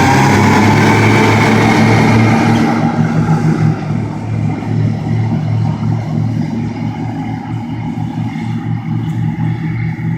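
Twin Mercury 175 Verado four-stroke outboards running under way, loud and steady after a rising pitch. About three seconds in the loud rushing noise cuts off and the overall level drops, while the low, even engine drone carries on.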